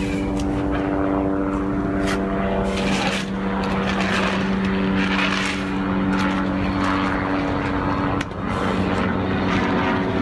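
A small gasoline engine running steadily, its hum shifting briefly about eight seconds in, with intermittent knocks and clatter of hoses and fittings being handled.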